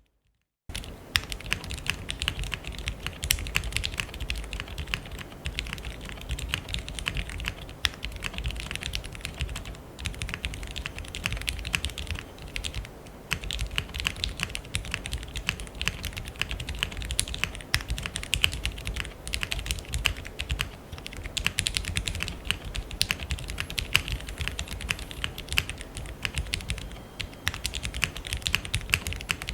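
Typing on a Gingko65 all-aluminium 65% mechanical keyboard fitted with lubed Cherry MX Black Hyperglide linear switches, GMK Hennessey keycaps and a polycarbonate plate with no foam. Keystrokes come in a fast, continuous stream, starting about half a second in and easing off briefly a couple of times.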